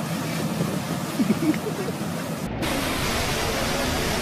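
Heavy rush of water from a high-pressure jet, with a few brief vocal sounds about a second in. About two and a half seconds in it cuts abruptly to the steady rush of water flowing over an artificial surf-wave ride.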